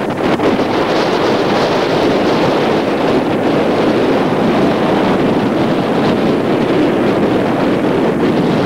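Steady loud wind rushing and buffeting on the microphone.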